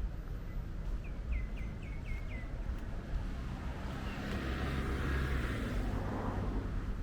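Outdoor ambience with a steady low rumble, a quick run of about five small bird chirps about a second in, and a rush of noise that swells and fades in the second half.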